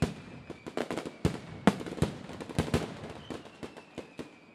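Fireworks going off in a rapid, irregular volley of sharp cracks and pops. A faint whistle gliding slightly down sounds through it twice.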